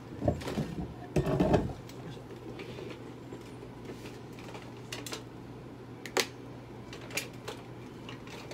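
Handling noises beside a steel exam table: two heavy knocks or rustles in the first two seconds, then a few short, sharp clicks spaced a second or so apart, over a steady low hum of room equipment.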